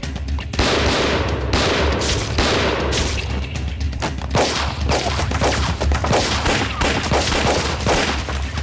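Gunfight sound effects: many pistol shots in quick succession, with bullets striking a stone wall, over background music.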